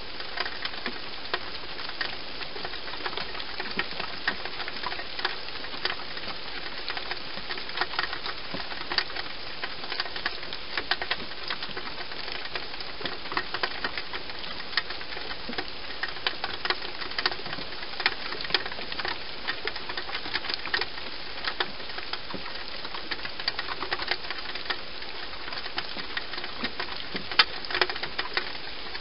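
Wild European hedgehog crunching dry food: irregular crisp clicks and crackles in bouts, over a steady hiss.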